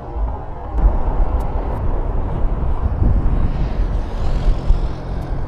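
Boeing 747's four jet engines at takeoff thrust during the takeoff roll: a loud, steady rumbling roar that grows sharply louder about a second in.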